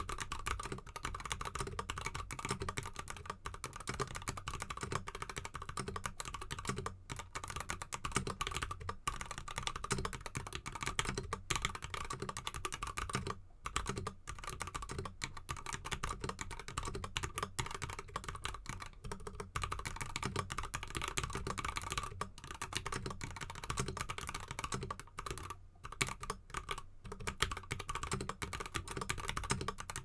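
Continuous typing on a GK64X mechanical keyboard with lubed Kailh Box Red Pro linear switches, XDA keycaps and a foam-dampened aluminium case, set on a cork mat. A dense, steady stream of key clicks, broken by short pauses near the middle and again later on.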